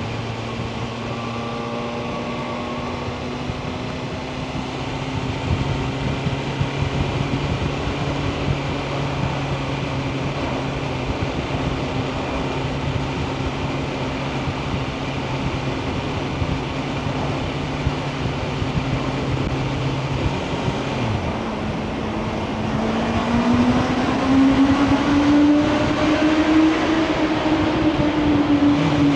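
Sport motorcycle's inline-four engine running at steady revs. About two-thirds of the way through the revs drop, then climb again as it accelerates, getting louder toward the end.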